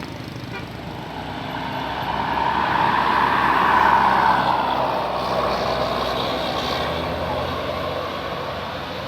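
A heavy road vehicle passing by. Its engine and road noise swell to a peak about four seconds in, then slowly fade.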